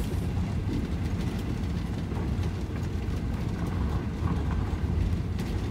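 Inside the cab of a Ford-chassis Class C motorhome rolling slowly over a gravel road: a steady low rumble of the engine and tyres, with scattered small clicks and crunches from the gravel under the wheels.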